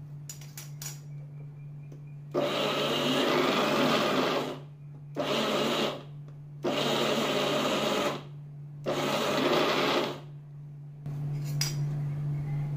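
Electric mixer grinder running in four short pulses, its small steel jar grinding roasted peanuts that are turning from a thick meal into a paste; the first run is the longest, about two seconds. Light plastic clicks from the lid come before and after the runs.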